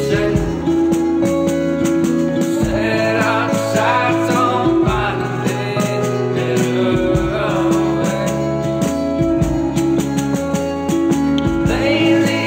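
A band's recorded song playing: drums, bass and guitar, with a melodic lead line coming in and out over them.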